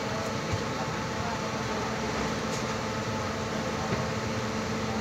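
Steady rumble and hiss of a moving passenger train, heard from on board, with a constant low hum under it.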